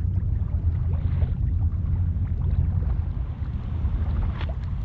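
Wind rumbling steadily on the microphone aboard a sailing yacht under way, with water washing past the hull and a short hiss about a second in.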